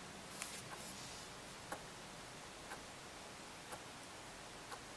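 Faint, even ticking of an analog clock's second hand, once a second, with a brief patter of clicks about half a second in as a hand moves away from the desk clock.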